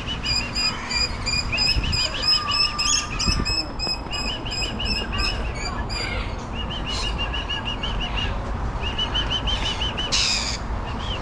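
Lorikeets chattering: rapid runs of short, high, repeated chirps, with one harsh screech about ten seconds in.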